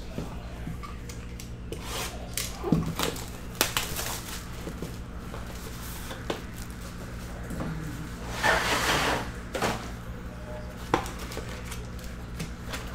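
A cardboard trading-card hobby box being handled and opened by hand: scattered taps and clicks of the box, and a scraping rub of cardboard lasting about a second past the middle as the packs are slid out. A steady low hum runs underneath.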